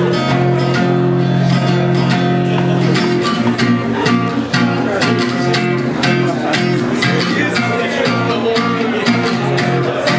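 Acoustic guitar being strummed, with chords ringing in a steady rhythm.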